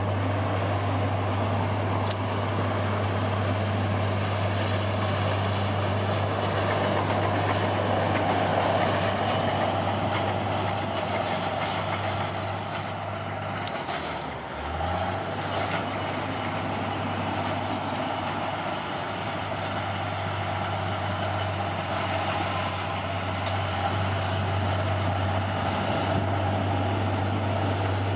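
Caterpillar D6R bulldozer's diesel engine running steadily under work, its speed dipping briefly about halfway through and then picking back up.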